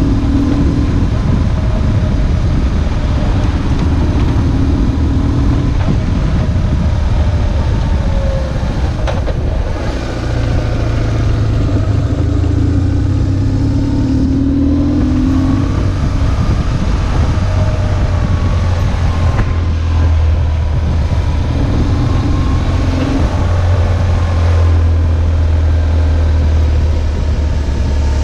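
BMW R1150GS's boxer twin engine running while the motorcycle is ridden, its note rising and falling with speed and a few brief dips.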